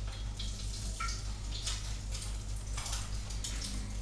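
Hot frying fat in a pan crackling and spitting in irregular little pops while some of the fat is poured off, over a steady low hum.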